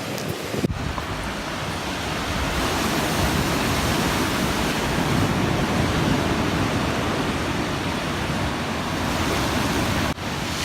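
Sea surf washing in, a steady rushing that swells and eases, with some wind.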